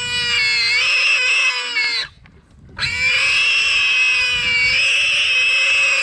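Warthog screaming in distress while pinned down by a leopard: two long, high squeals with a short break about two seconds in.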